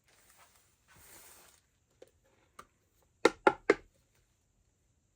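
A small dog barking three times in quick succession, about a quarter-second apart, loud and sharp. Before the barks comes a brief soft hiss of air.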